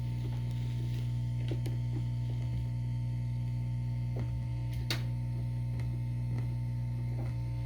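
Steady electrical hum from the vintage General Electric stereo's amplifier and speakers, a low tone with higher overtones, while the radio is tuned with no station coming in. A few faint clicks are heard, the clearest about five seconds in.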